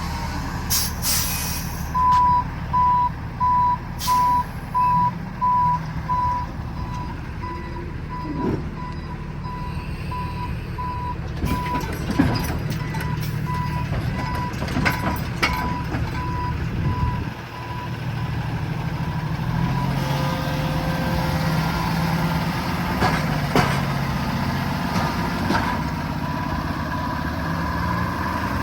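Backup alarm on a railway maintenance truck beeping steadily as the truck reverses, the beeps fading out about ten seconds in, over the low running of its diesel engine.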